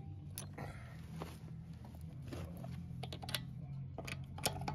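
Faint, scattered light clicks and taps of a socket and hand tool being handled on a wheel's lug nuts, over a low steady hum.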